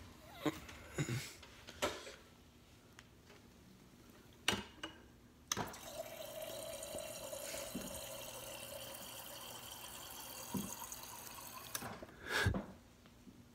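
Water running into a drinking glass for about six seconds, starting and stopping abruptly. A few sharp knocks come before it starts and one more just after it stops.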